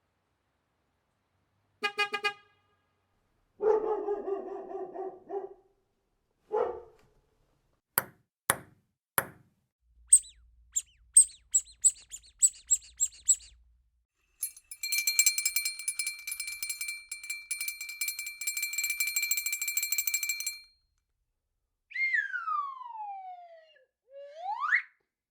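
A run of separate sound effects: a short honk like a car horn, a longer wavering pitched call, four sharp clicks, a quick series of high chirps, then a bell ringing rapidly for about six seconds, and near the end a whistle that slides down in pitch and back up.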